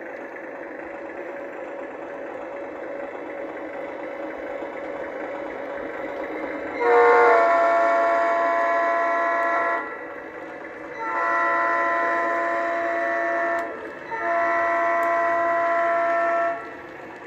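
Lionel Lion Chief Plus 2.0 Santa Fe Doodlebug model train's onboard sound system: the diesel engine's clankety-clank running sound as the train rolls along the track, then three horn blasts, each two to three seconds long, the first about seven seconds in.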